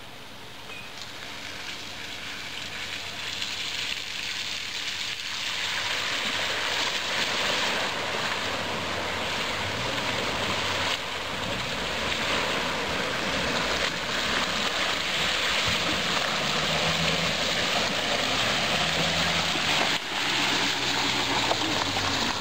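A lifted Jeep SUV fording a deep, flooded river crossing: water rushes and splashes around its wheels, growing steadily louder as it comes closer, with a low engine hum showing under the splashing in the second half.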